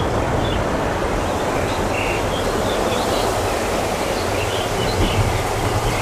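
Airbus A330-300 twin jet engines heard from beside the runway: a steady, loud rumble and rush that eases off slightly as the aircraft moves away.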